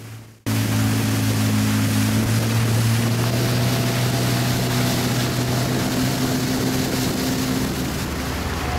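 Motor of a small river cruise boat running steadily under way, a constant engine hum under a loud rush of wind and water. It cuts in abruptly about half a second in.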